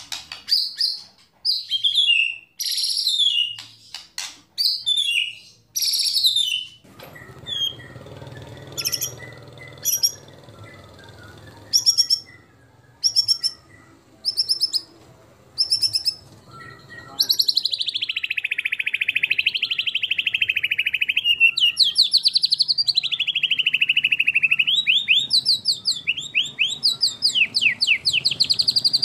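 White-rumped shama (murai batu) singing loud whistled phrases and sharp notes with short gaps. About halfway through it breaks into a long unbroken run of fast trills and sweeping notes.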